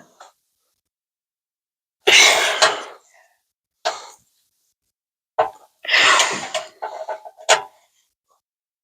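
A person coughing several times in short, breathy bursts.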